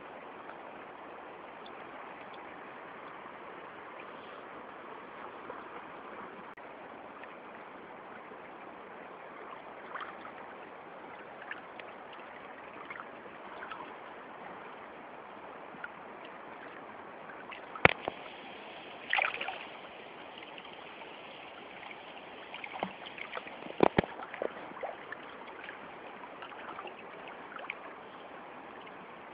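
Strong river current rushing steadily, with a few sharp knocks and splashes in the second half.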